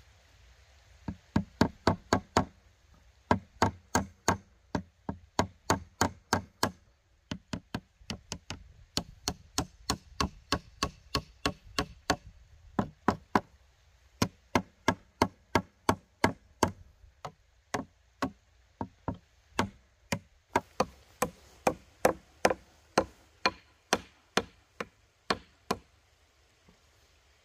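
Repeated knocking: quick, even strikes, several a second, in runs broken by short pauses.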